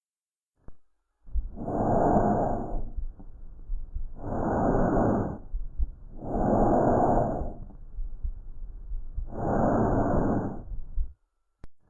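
Recorded lung sounds: four breaths heard through the chest, each a noisy swell of about a second and a half. A faint click comes just before the first and another near the end.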